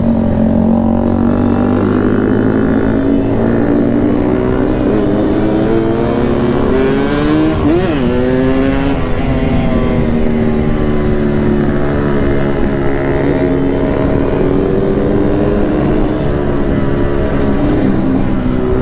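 Yamaha RX-King's two-stroke single-cylinder engine running under way, its note drifting up and down with the throttle. About eight seconds in there is a quick rev up and back down.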